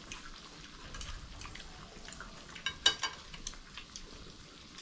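Meat sizzling quietly in a tabletop electric grill pot while chopsticks turn it, with light clicks of the chopsticks against the pan. A single sharp clink of tableware about three seconds in.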